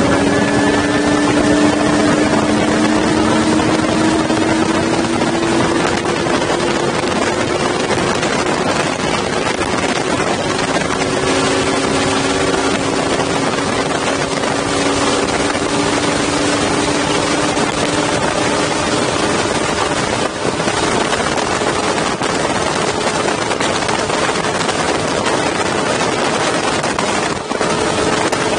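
Mercury Racing 300 outboard motor running at full throttle, pushing a speedboat from about 35 to over 100 mph. Its note climbs gradually in pitch under a steady rush of wind and spray.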